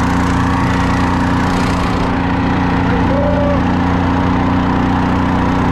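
Small longtail boat motor running steadily at speed, its pitch held constant under load.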